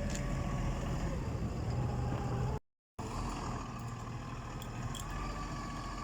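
Steady low hum of a running engine, with a sudden drop to complete silence for under half a second about two and a half seconds in.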